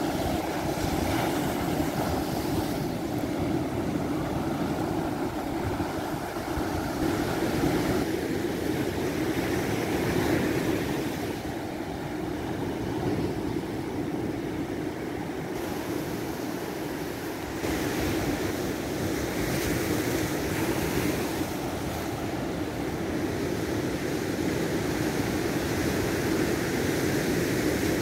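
Sea surf: waves rolling in one after another and breaking, with wind on the microphone. The sound shifts abruptly a few times.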